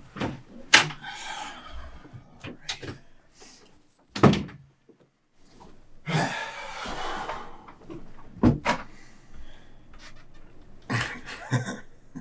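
A series of sharp knocks and thuds, among them a door being shut, with the loudest thud about four seconds in, followed by a moment of silence. A rustling hiss follows around six seconds in, then a few more knocks.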